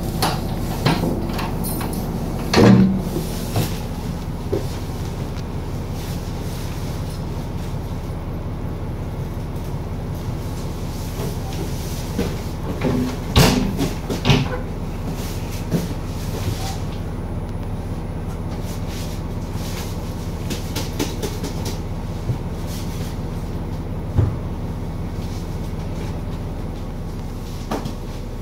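Steady drone of a stopped KiHa 261 series diesel express railcar heard from inside its vestibule. A few knocks sound through it, with a door clunking shut about halfway through.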